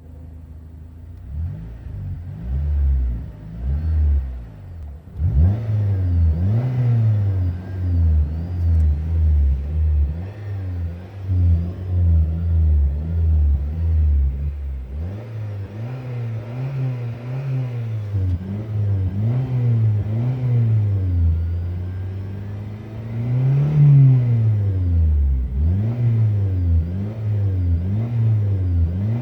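Car engine revved up and down over and over, with a thin high whistle that wavers above the engine note: the whistle and squeak the owner is trying to track down.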